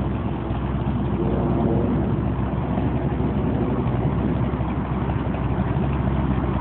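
Sutphen jet boat's 454 Chevy big-block V8 running slowly at low revs, a steady low-pitched engine note with no revving.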